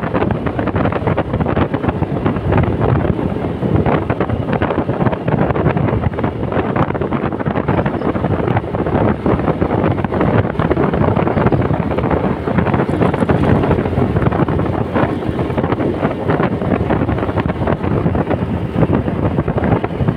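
Steady wind noise buffeting the microphone while riding a motorcycle, mixed with the engine and road noise.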